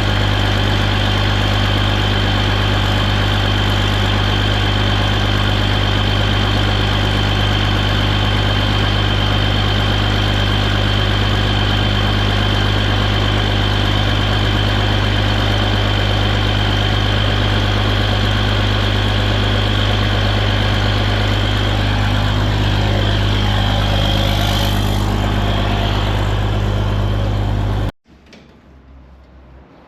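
John Deere 2030 tractor engine idling steadily, with a thin high whine over it. About two seconds before the end the sound cuts off abruptly, leaving only faint low noise.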